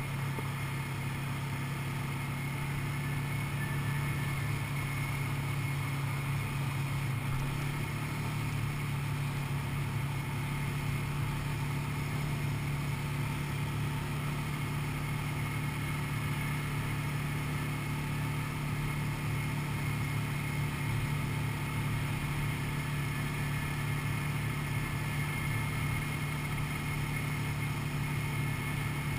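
ATV (quad bike) engine running steadily at cruising speed, heard from on board: an even, low drone that barely changes.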